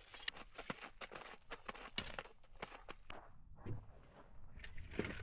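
Footsteps crunching on gravel: an uneven run of short, faint crunches and clicks.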